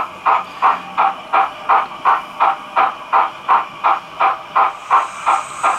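Zimo DCC sound decoder with a Youchoos steam sound file, in an OO gauge model of an LMS Princess Coronation class Pacific, playing steam exhaust chuffs through the model's small speaker as the locomotive runs at speed. The chuffs come in an even beat of about three a second, and a hiss joins in near the end.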